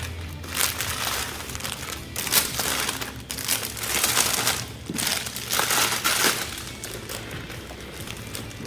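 Crinkling of clear plastic wrappers on squishy toys as they are grabbed and handled, in several loud rustling bursts over the first six seconds or so, quieter toward the end.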